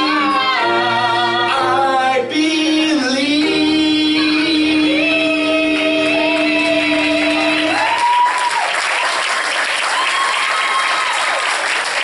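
Singers hold the final sustained notes of a stage song over a backing track, which ends about eight seconds in. Audience applause with a few whoops of cheering follows.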